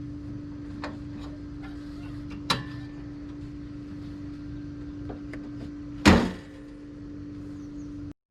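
Steady low hum with a sharp knock about two and a half seconds in and a loud, heavy clunk about six seconds in.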